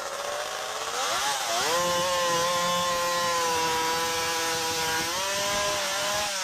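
Chainsaw powered by a V8 engine, running loud under load as it cuts through a large log. Its pitch dips about a second in, then holds steady, and rises a little near the end.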